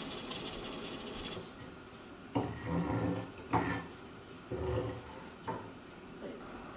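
Kitchen knife chopping on a wooden cutting board: a handful of uneven thuds, the loudest about two and a half and three and a half seconds in, some trailing a short low hum.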